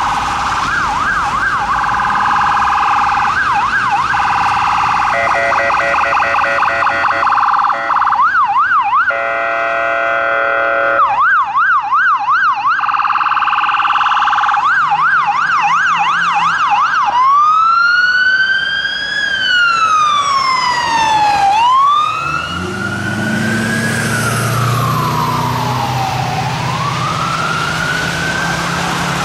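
An ambulance's electronic siren, running first in fast yelp spells with a rapid pulsing tone between them and a buzzy horn blast around nine seconds in. About seventeen seconds in it switches to a slow wail that rises and falls every four or five seconds. Engine and tyre noise come up as the ambulance passes, about two thirds of the way through.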